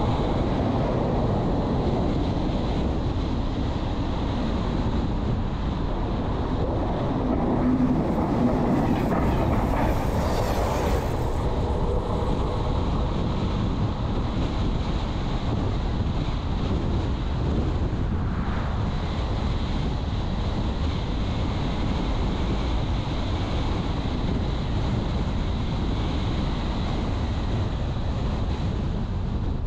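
Car driving along a road: a steady rumble of tyre and wind noise, briefly brighter and a little louder about eight to eleven seconds in.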